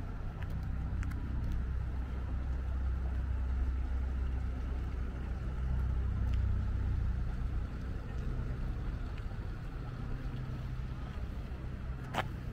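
Low, steady rumble of a motor vehicle's engine, with a few light clicks and one sharper click near the end.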